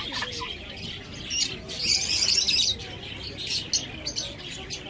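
Many small birds chirping and chattering together, growing into a dense burst of chatter for about a second and a half in the middle.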